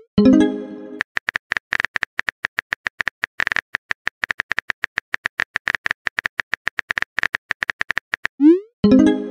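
Simulated phone keyboard typing sounds: a quick run of short key clicks, several a second. It opens with a rising swoosh and a short fading chime. About 8 seconds in, as a message is sent, another rising swoosh and chime follow.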